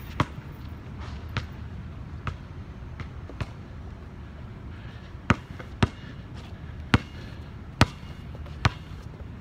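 A basketball bouncing on hard ground: four fainter bounces in the first few seconds, then five louder, sharper bounces about one a second as it is dribbled close by, over a steady low background rumble.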